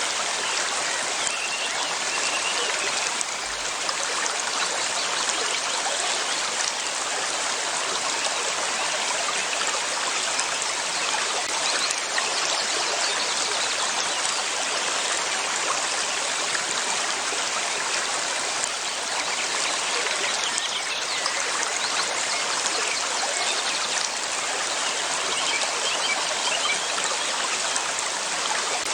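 River water flowing steadily, a continuous rushing and trickling.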